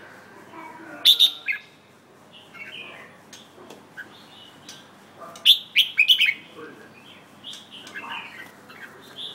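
Red-whiskered bulbul singing: two loud bursts of quick, sharp notes, about a second in and again around the middle, with fainter calls between.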